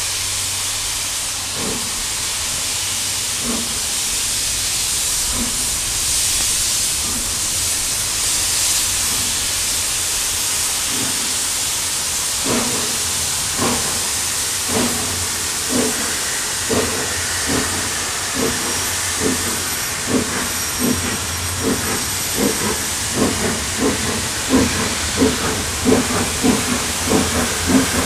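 Steam locomotive working a train: a steady hiss of escaping steam over its exhaust beats, which start slow and faint, then from about halfway quicken to roughly two a second and grow louder as the engine draws near.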